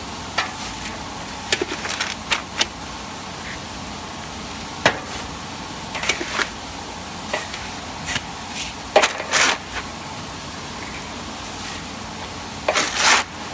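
Electric continuous barley roaster running: a steady machine noise with irregular clicks and short rustling rattles of barley grains tumbling in the rotating drum. The loudest burst comes near the end as grain starts spilling from the drum's mouth.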